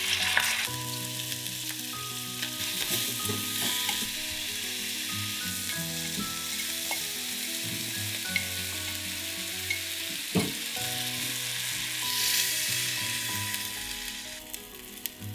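Food sizzling as it fries in a pot and is stirred; the sizzle starts suddenly, swells about twelve seconds in and then eases. A single sharp knock comes about ten seconds in.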